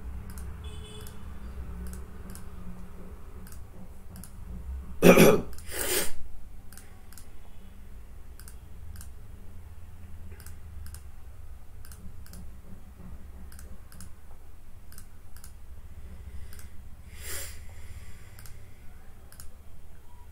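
Faint repeated clicks over a low steady hum, broken by two short loud noises about five and six seconds in and a weaker one near the end.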